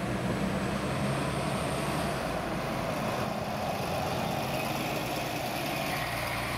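Mercedes-Benz Citaro articulated city bus moving slowly past at close range, its engine running with a steady low note.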